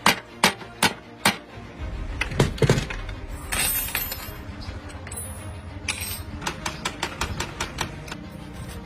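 A run of sharp clinks and knocks, some in quick succession, over background music.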